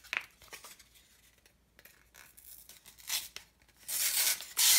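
Paper facing being peeled off foam board: quiet at first, then a short tearing rip about three seconds in and two louder rips near the end.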